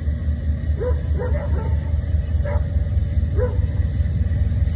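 A pair of CSX diesel locomotives hauling a loaded coal train run past with a steady low rumble. A dog barks and yips about five times over the first few seconds.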